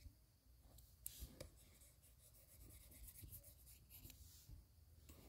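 Faint tapping and scratching of drawing strokes on a tablet touchscreen, with a few light clicks about a second in, over near silence.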